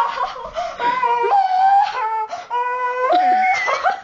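A child screaming in a high, shrill voice: a string of drawn-out cries one after another, stopping abruptly near the end.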